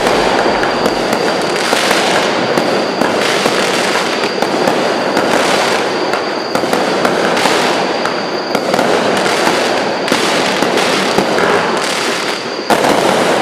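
Consumer aerial finale set of four cakes, 64 shots in all, firing a dense, continuous barrage of launches and bursts, stepping up suddenly louder near the end.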